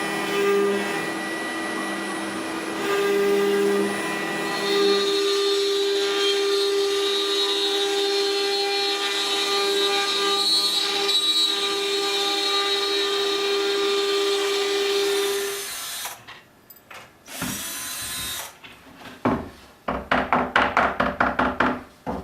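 ShopBot CNC router's spindle running steadily as it cuts white oak, a machine whine of several steady tones that shifts about five seconds in. It stops about 16 seconds in, followed by a short burst of noise and a quick run of rhythmic strokes, about five a second, near the end.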